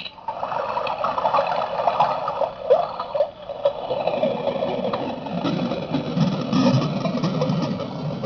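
Circuit-bent sound effects toy played through an amplifier, its animal-sound samples stuttering and smearing together into a dense, warbling electronic drone. It starts abruptly, and a lower rumbling layer joins about halfway through.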